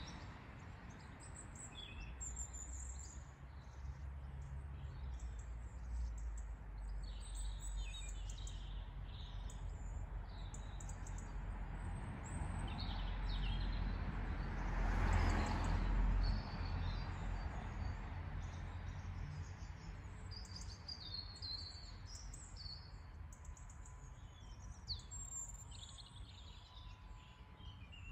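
Songbirds chirping and singing over a steady low rumble of wind or distant traffic, which swells briefly about halfway through.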